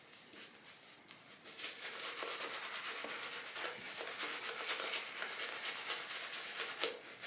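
Synthetic shaving brush working Dr. Selby shaving cream into a lather: a rapid, wet rubbing. It is quieter for the first second and a half, then steadier and louder.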